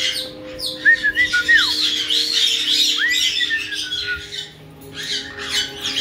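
Caiques calling: short whistled chirps that rise and fall, about a second in and again about three seconds in, with a quick run of high, arching squawky notes between them.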